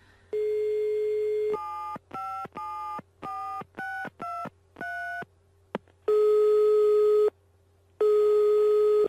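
Telephone call being placed. A steady dial tone sounds, then a quick run of about seven touch-tone keypad beeps as the number is dialled, a click, and two long ringing tones as the line rings.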